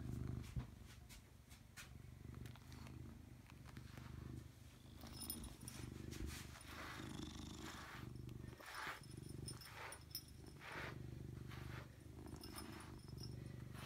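Domestic cat purring close to the microphone: a low rumble that rises and eases in cycles of about a second. Soft rustling comes and goes from about five seconds in.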